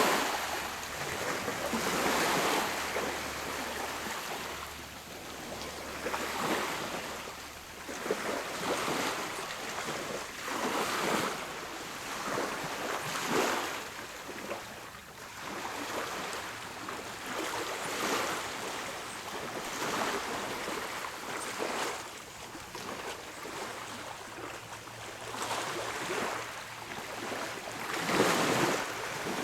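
Small sea waves lapping and washing ashore, a soft wash that swells and falls every couple of seconds.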